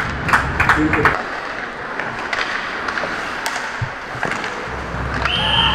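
Ice hockey play: a quick run of stick and puck clacks and knocks in the first second, then sparse skate and stick clicks on the ice, and a referee's whistle blowing a steady high note near the end.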